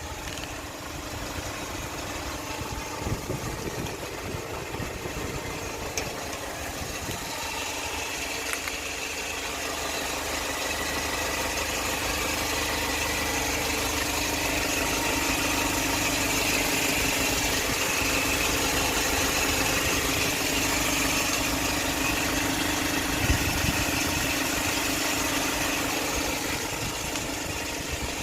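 Hyundai Porter cargo truck's engine running steadily. It grows louder over the first half and then holds, with one short knock about two-thirds of the way in.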